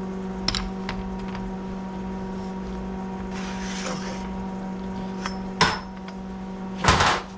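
Steady electrical hum of a stick welder, with scattered knocks and clanks of the steel shaft being handled, a brief hiss about halfway through and a loud clatter near the end.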